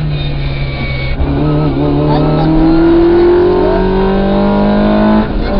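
Rally car engine under hard acceleration: after about a second at a steady note, its pitch climbs steadily for about four seconds, then drops sharply at a gear change near the end.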